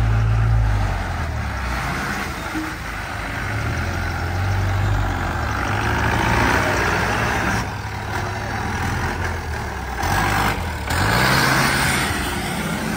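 Engine of a Mahindra off-road jeep working at low speed as it crawls over a steep, muddy dirt slope, with the revs climbing near the end.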